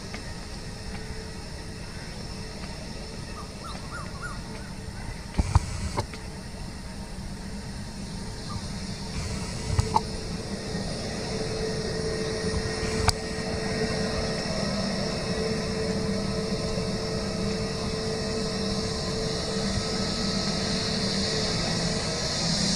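Jet engines of an Airbus A320-family airliner running as it rolls onto the runway before take-off, a steady whine and hiss that grows gradually louder. A few sharp knocks stand out in the first half.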